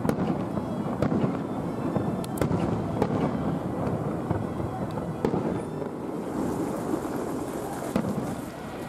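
Aerial fireworks display: a dense run of irregular bangs and pops from bursting shells over a steady rumble, with a high fizzing crackle from about six seconds in.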